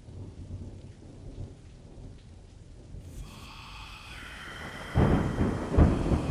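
Thunderstorm: rain with a low rumble, a higher hiss joining about three seconds in, then a loud clap of thunder about five seconds in that peaks twice.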